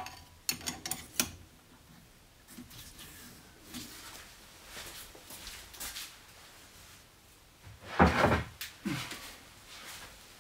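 Light clicks and knocks of hand tools and parts being handled on a drill press table, with a louder thump about eight seconds in.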